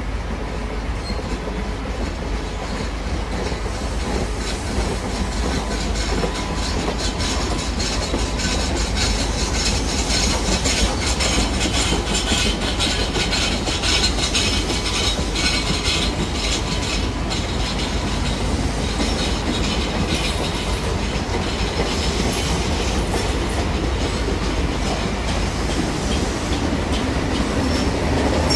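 InterCity Mk3 coaches of a push-pull train rolling past at moderate speed, the wheels clattering over rail joints in a steady run of clicks. It grows a little louder over the first ten seconds and stays steady after.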